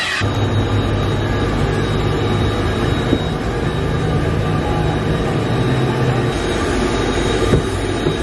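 Car wash vacuum motor running with a steady drone and a thin high whine.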